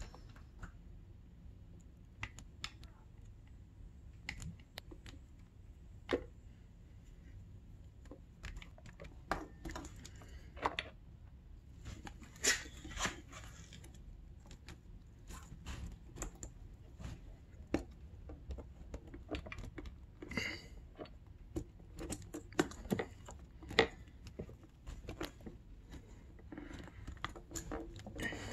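Scattered small clicks, taps and rustles of a two-stroke dirt bike's carburetor and its rubber fuel and vent hoses being handled and worked onto the engine's intake boot.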